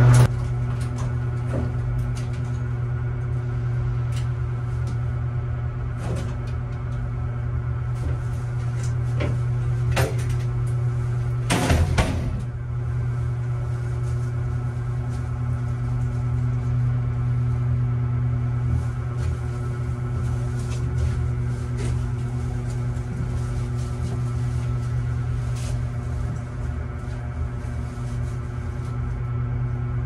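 Steady low machine hum with a few pitched overtones, over scattered clicks and knocks of a sheet-metal air handler housing being handled, with a louder clatter about twelve seconds in.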